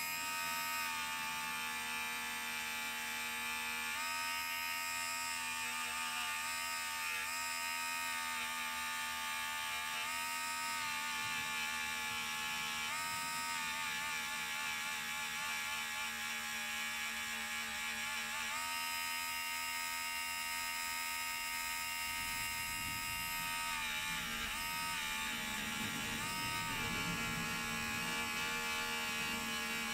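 Harbor Freight handheld rotary tool running with a steady whine as its spinning polishing bit buffs scratches out of a gold grill. The pitch steps up and down several times as the bit is pressed against and eased off the metal, and a rougher grinding noise joins in for the last several seconds.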